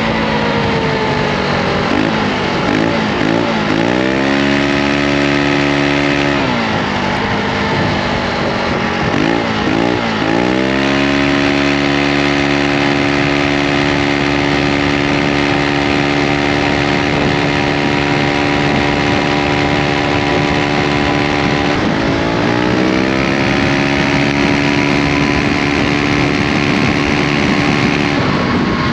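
Aprilia SR GT 125 scooter's single-cylinder four-stroke engine and exhaust running under way. The engine note falls and climbs again about three times, with a wavering dip a few seconds in and again near ten seconds. Between these changes it holds a steady pitch for long stretches, as the automatic transmission keeps the revs constant while accelerating.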